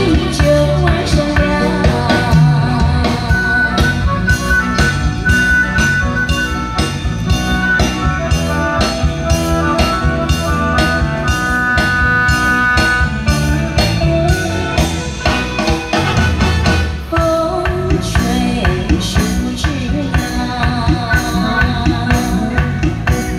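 A woman singing a classic Chinese pop song into a microphone, backed by a live band. A drum kit keeps a steady beat and the sound comes over stage loudspeakers.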